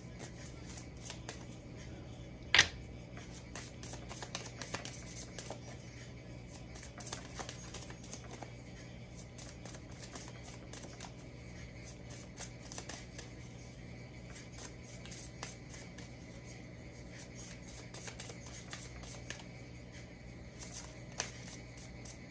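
A deck of tarot cards being shuffled and handled: soft, irregular card clicks and flicks, with one sharp snap about two and a half seconds in.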